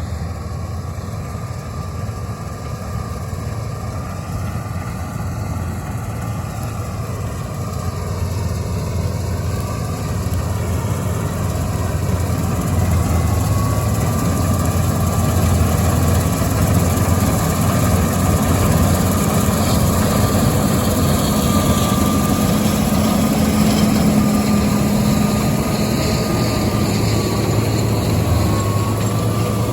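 Combine harvester running steadily, growing louder over the first dozen seconds and then holding even.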